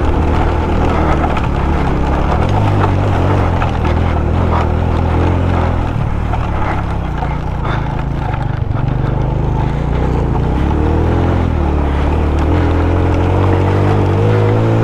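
Suzuki GS150SE's single-cylinder four-stroke engine pulling steadily under load up a steep rocky climb, with short knocks and rattles as the bike rides over stones. The engine note drops and picks up again about ten seconds in.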